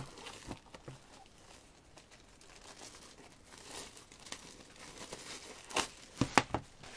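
Plastic wrapping crinkling as a shrink-wrapped album is handled, with a cluster of louder, sharp crackles near the end.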